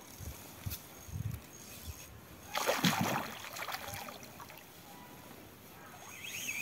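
A hooked pike thrashing and splashing at the water surface, with one loud splash about two and a half seconds in after a few soft low thumps.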